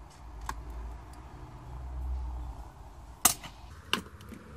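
Sharp metallic clicks and taps of a small screwdriver and tools against a phone's metal frame. One small click comes about half a second in, the loudest about three seconds in, and another a moment later, over a low rumble of handling in the first half.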